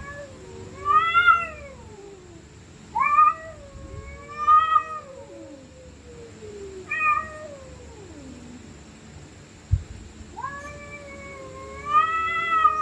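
Stray cats caterwauling in a standoff: long, wavering yowls that rise and fall, with a higher voice and a lower, drawn-out growling voice overlapping, coming in four bouts. There is a short thud near the 10-second mark.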